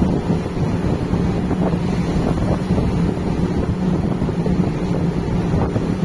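Wind buffeting the microphone on a cargo ship's open deck at sea, over a steady low drone from the ship and the rush of water along the hull.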